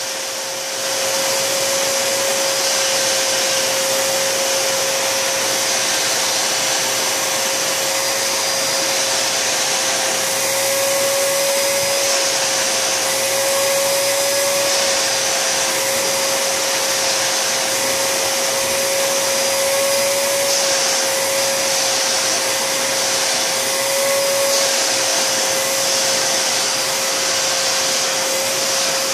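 Vacuum cleaner running steadily, a rush of air with a steady whine through it, coming up to full speed about a second in.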